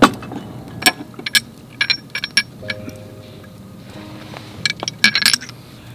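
A glass sake bottle being handled among metal and glass camp gear: a run of sharp clinks and knocks, some ringing briefly, in two bursts about two seconds and five seconds in. Soft background music plays underneath.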